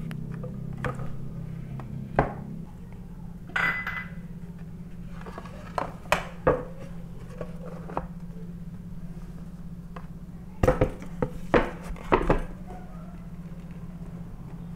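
Aluminium baking tin and wooden cutting board knocking and clattering as the tin is turned out onto the board, with scattered knocks and a quick run of louder ones about ten to twelve seconds in. A steady low hum runs underneath.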